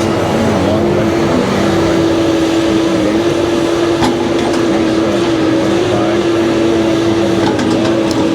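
Heavy logging machine's engine running at high, steady revs while it works in an operator contest.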